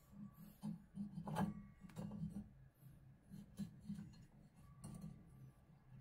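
Faint handling noises as a rubber drive belt is worked by hand onto a Panasonic washing machine's pulleys and the big pulley is turned to seat it: light rubbing with a few sharp clicks.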